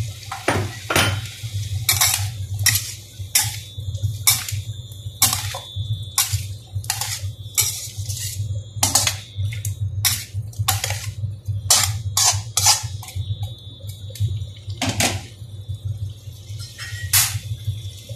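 Metal spatula scraping and clanking against a stainless steel wok while vegetables are stir-fried, in irregular strokes roughly once or twice a second. A steady low hum runs underneath.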